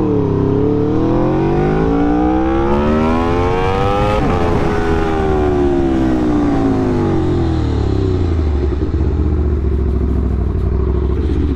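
Aprilia RSV4's V4 engine under way: revs climb steadily for about four seconds, drop sharply, then wind down over the next few seconds to a steady low drone as the bike slows.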